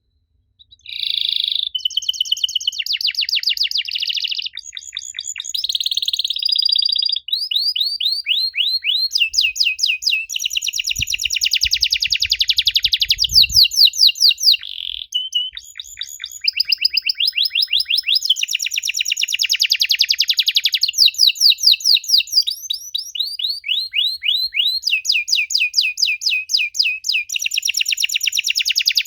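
Domestic canary singing a long, continuous song of fast, high trills and rapidly repeated chirps, changing from one trill to the next every few seconds. The song starts about a second in.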